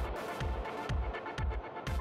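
Electronic dance music with a steady kick drum beating about twice a second.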